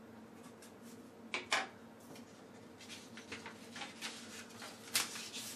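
Two sharp taps about a second and a half in, as a pen is set down on a wooden table, then sheets of paper being handled and rustled, with a louder crinkle near the end.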